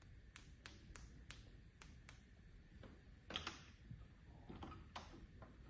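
Faint, irregular light clicks and taps from small electrodes being flicked with a finger and handled to knock air bubbles out of their inner solution.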